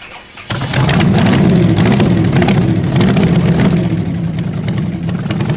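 Hot rod engine running loud with a rapid, throbbing exhaust pulse, starting abruptly about half a second in and easing slightly after about four seconds.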